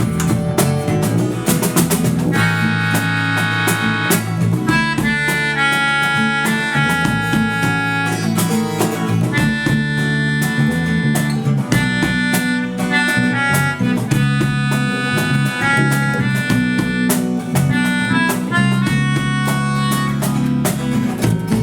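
Instrumental break of a pop-rock band song: drum kit, bass and guitar, with a high lead melody of held notes coming in about two seconds in.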